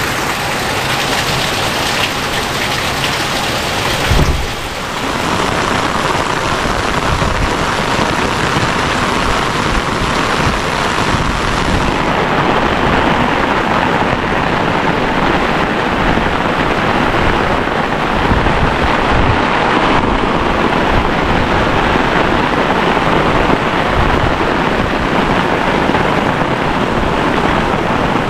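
Heavy rain falling steadily, with a brief low thump about four seconds in.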